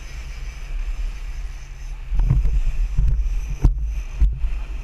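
Sportfishing boat underway with a steady low rumble and wind buffeting the action camera's microphone. The buffeting grows heavier about two seconds in, and two sharp knocks come near the end.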